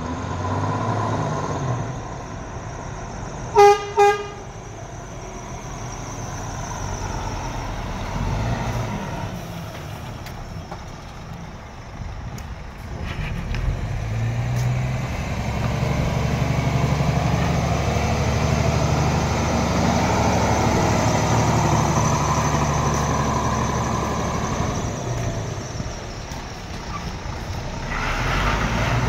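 2014 Scania R450 tractor unit's 13-litre straight-six diesel engine running as the truck drives slowly and manoeuvres, louder from about halfway through. Two short toots of its horn sound a little under four seconds in.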